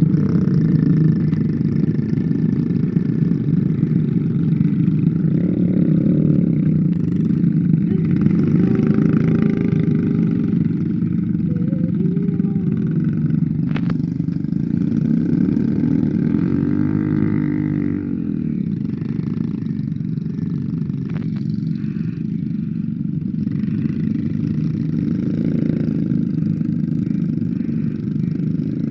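A motorcycle engine running steadily, its revs rising and falling around the middle. Two sharp clicks come about halfway through and again later.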